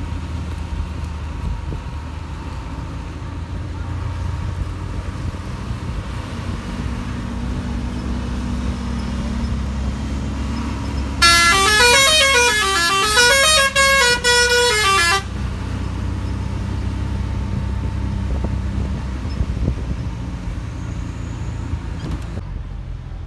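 Bus engine running steadily with a low rumble, and about eleven seconds in a loud musical horn plays a rising and falling tune for about four seconds.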